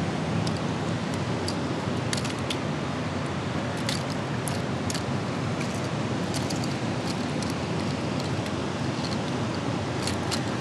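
Steady rush of water flowing through a dam spillway, with scattered light metallic clicks as pliers work the hooks of a swimbait out of a muskie's mouth.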